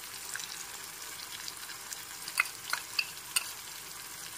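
Spices and chopped tomato sizzling in hot oil in a metal kadai, a steady frying hiss. In the second half, several sharp clicks of a metal spatula scraping and knocking against the pan as the masala is stirred.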